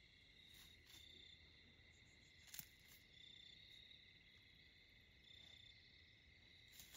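Faint, steady chirring of insects such as crickets in the woods, with two light clicks partway through and near the end.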